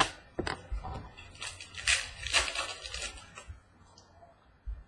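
Prizm soccer trading cards being handled and flipped through by hand: a sharp click, then a run of quick rustles and slides of card stock, busiest in the middle, dying away near the end.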